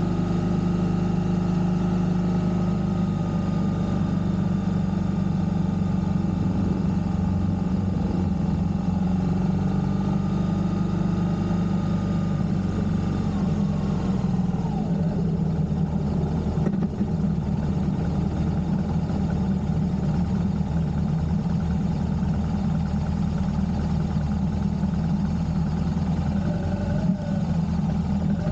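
Motorcycle engine running steadily while riding along a road. Its pitch drops a little about halfway through and rises again near the end as the engine speeds up.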